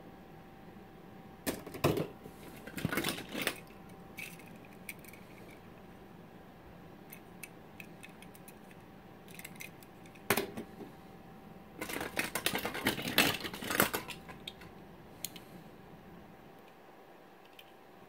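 Plastic toys being handled and set down: bursts of clicking and clattering about two seconds in, a single sharp click about ten seconds in, and a longer run of clicks and rattles a couple of seconds later.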